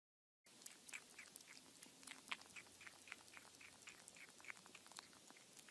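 Kitten eating at a plastic dish: faint, quick mouth clicks, about three or four a second, starting about half a second in.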